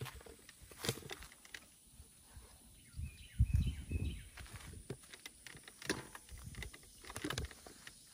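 Scattered rustles and sharp clicks of tomato plants being handled for picking, with a louder low rumble on the microphone about three and a half seconds in. A few faint bird chirps at the same time.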